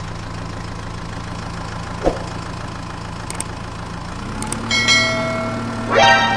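Steady engine idling hum that shifts slightly in pitch about four seconds in. There is a short knock about two seconds in, a ringing chime-like tone around five seconds, and a quick rising tone near the end.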